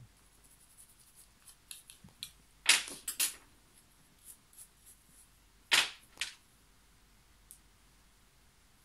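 Several sharp knocks: a loud cluster of three about three seconds in and a loud pair near six seconds, with lighter taps around them.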